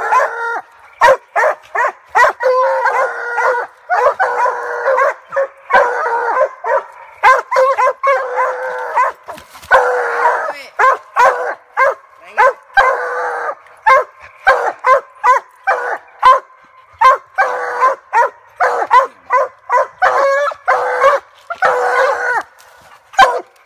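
Several Treeing Walker coonhounds barking treed at the base of a tree: a steady run of short sharp barks mixed with longer drawn-out bawls of about a second each. It is the hounds' signal that they have a raccoon up the tree.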